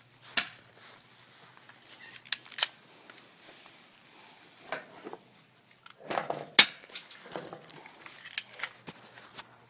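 Airsoft pistol shots: scattered sharp snaps, about ten over the stretch, with a louder cluster of knocks and rustling about six seconds in.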